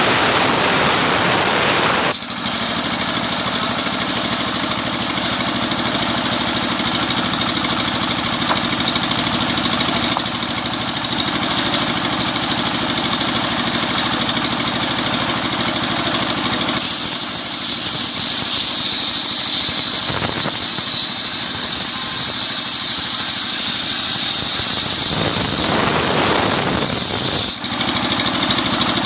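Engine-driven sawmill running steadily with a high squeal, the saw cutting coconut wood. The sound shifts abruptly about two seconds in, again just past halfway, and once more near the end.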